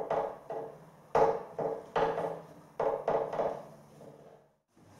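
A string of irregular knocks and clunks as a small bracket under an electric fire is worked into place and secured.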